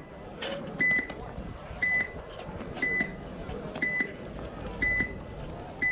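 Electronic countdown timer giving short, high beeps about once a second, counting down the final seconds before the point starts.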